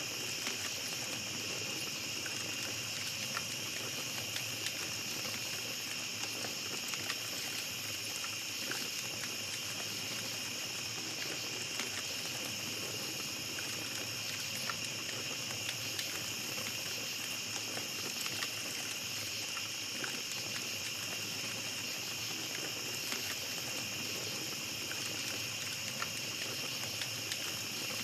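Campfire crackling with small scattered snaps and pops, under a steady, high-pitched chorus of night insects.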